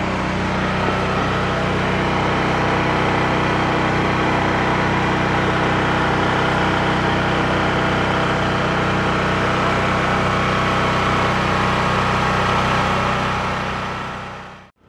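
An engine running steadily, giving a constant droning hum that fades out just before the end.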